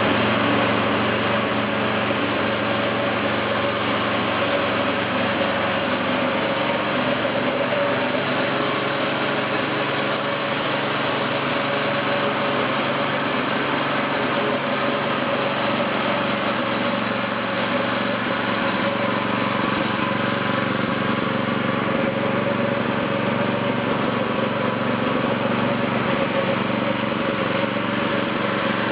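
Small engine running steadily, driving the spinning flywheel of a kinetic log splitter.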